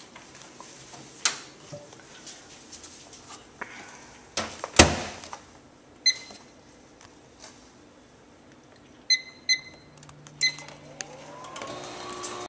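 Microwave oven being loaded and started: clicks and knocks of handling, a loud bang about five seconds in like the door shutting, then keypad beeps, one and then three more, as the time is set. Near the end the oven starts running with a hum that rises in level.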